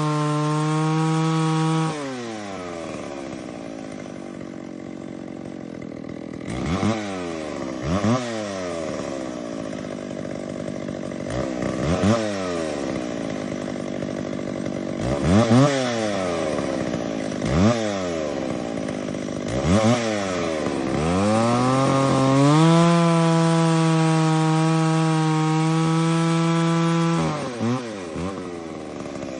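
60cc two-stroke chainsaw running at high revs, dropping to idle about two seconds in. It is then blipped up and back down several times, held at high revs for about five seconds, and let back down to idle near the end.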